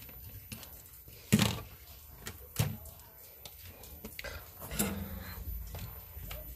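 Handling noise as loose wires and a ribbon cable are moved about and laid down by hand: three short knocks, the first, about a second in, the loudest, with soft rustling between.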